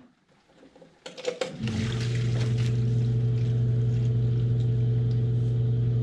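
A few knocks, then about a second and a half in the sump pump's electric motor starts and runs with a steady hum. It runs a long cycle to empty a pit that filled while the pump was unplugged.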